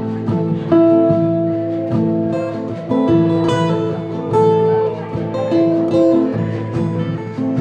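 A live acoustic band: two acoustic guitars strumming chords, with a melody of long held notes over them.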